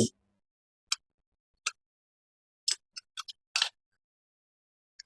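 A few sharp, separate metallic clicks and taps of hand tools on engine parts while a cylinder head is being taken off, spaced unevenly with quiet between.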